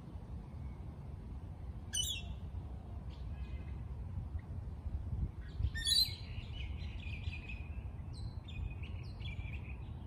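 Several birds calling and chirping: a sharp chirp about two seconds in, a harsh call near six seconds followed by a run of shorter calls to the end, over a steady low rumble.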